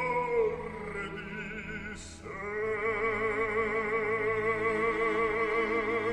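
Operatic singing as a film soundtrack: a voice holding long notes with wide vibrato, one note ending shortly after the start and a new long note beginning about two seconds in.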